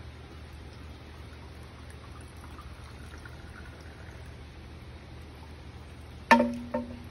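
Bamboo shishi-odoshi (deer chaser) fountain: water trickles into the tube, which tips to empty into the stone basin and swings back. Its end strikes the stone with a hollow knock that rings briefly, about six seconds in, followed by a smaller second knock as it bounces.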